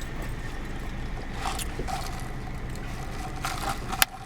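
Steady low rumble with a few faint scrapes and handling noises, and a sharp click near the end.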